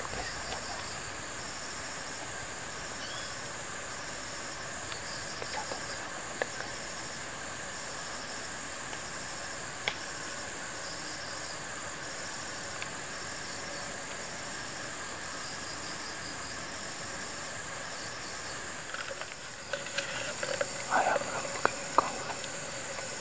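Forest insects, crickets among them, keep up a steady high-pitched buzz with a repeating pulsed chirp over it. Near the end, leaves rustle and there are a few knocks as the camera is moved.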